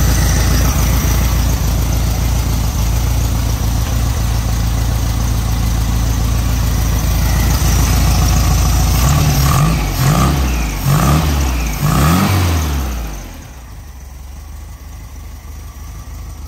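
1970 VW Beetle's air-cooled flat-four engine running steadily with its carburetor freshly adjusted. About nine seconds in, the throttle is blipped about four times, each a quick rise and fall in revs. The engine then settles to a much quieter, lower idle.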